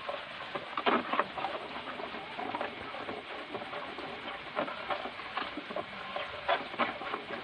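A bare hand stirring and working liquid puto batter in a large basin, with irregular soft wet strokes.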